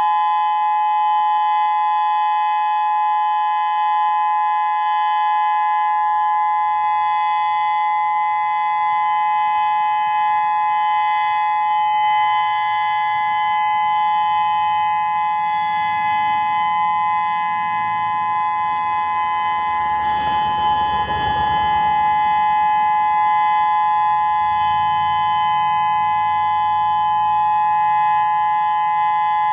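Federal Signal Modulator 6024 electronic warning siren sounding a steady alert tone, several pitches held together without rising or falling. A brief rush of noise passes under it about two-thirds of the way through.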